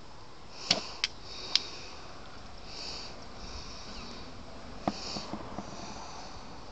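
A few small, sharp clicks and knocks as small glass nail polish bottles are picked up and handled, three of them in the first second and a half and a few more about five seconds in. A couple of soft sniffs or breaths close to the microphone come between them.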